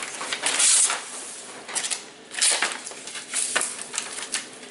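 Paper rustling and crinkling in irregular bursts as a greeting-card envelope is torn open and the card pulled out, with tissue-paper gift wrap handled in a gift bag. A few sharp ticks of paper and card handling.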